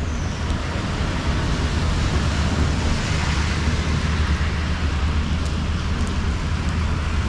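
Steady hiss of heavy rain mixed with the low rumble of traffic on a wet road.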